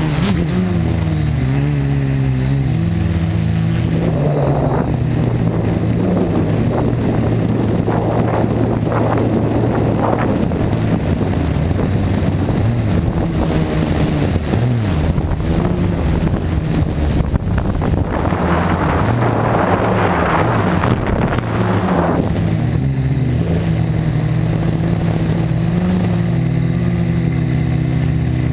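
A quadcopter's electric motors and propellers buzz steadily, their pitch stepping up and down as the throttle changes. Several gusts of rushing noise rise over the buzz.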